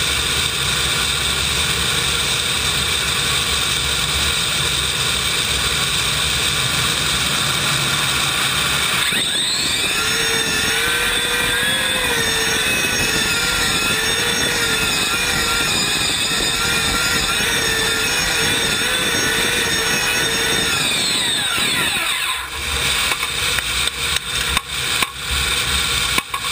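Modified tractor puller's Klimov TV3-117 helicopter turbine running at full power under load, heard onboard close to the engine. A loud steady rush carries a whine that rises about nine seconds in and wavers through the middle. About 22 seconds in the whine falls away as the turbine spools down at the end of the pull, leaving an uneven rumble with knocks.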